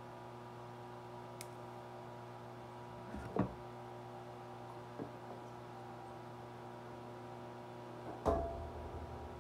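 A steady electrical hum with a few knocks from things being handled close by: one about three seconds in, a faint one at five, and the loudest, a thud, about eight seconds in.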